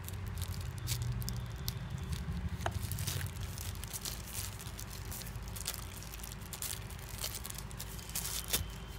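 Thin plastic bag crinkling and crackling as it is pulled open by hand to unwrap a small USB charger adapter, in irregular bursts, with one sharper crackle near the end.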